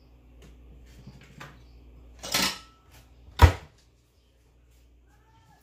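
Dishes handled in a kitchen: a few light clicks, a short scrape about two seconds in, then one sharp knock a second later, the loudest sound.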